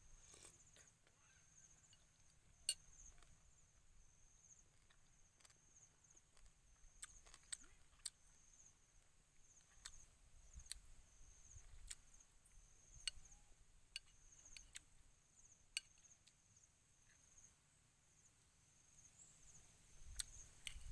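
Quiet eating sounds: a metal spoon clicking now and then against a ceramic bowl and soft chewing, with one sharper click about three seconds in. Under it runs a faint, steady high chirring of insects.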